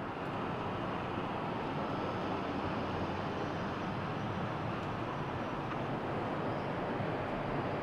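Steady vehicle rumble and road noise, an even roar without a clear engine note.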